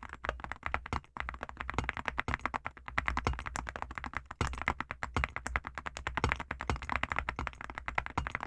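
Continuous fast typing on a mechanical keyboard fitted with full-metal keycaps: a dense, steady run of key clacks, several a second.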